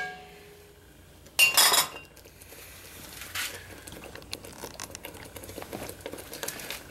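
A spatula knocking against the rim of a cast-iron Dutch oven once, about a second and a half in, then a faint, uneven crackle.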